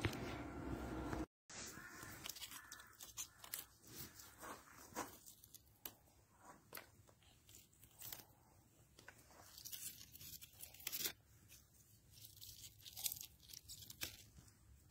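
A steady hum for about the first second, then, after a brief dropout, irregular crackles, snaps and rustles as a hand handles the leaves of small potted plants.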